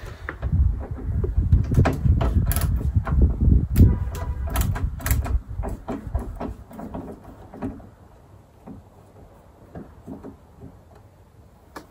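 A screwdriver working a T20 Torx screw on the underside of a car bonnet: a run of sharp clicks and scrapes about two to five seconds in, over a low rumble. After about six seconds it goes much quieter, with only a few scattered clicks.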